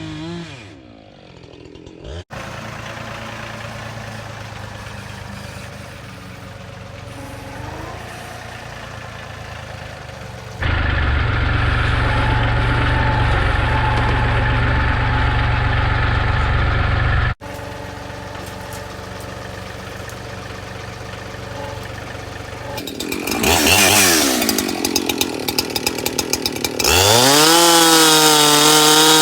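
Gas chainsaw running and cutting wood through several abruptly joined stretches, its pitch rising and falling with the throttle. It revs up sharply near the end.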